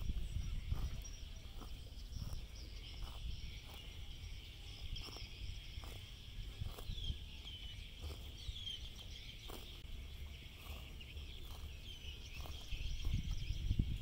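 Zebu cow grazing, tearing and cropping grass in short crunches about one or two a second, over a steady chorus of insects. A bird chirps a few times about halfway through, with a low rumble of wind underneath.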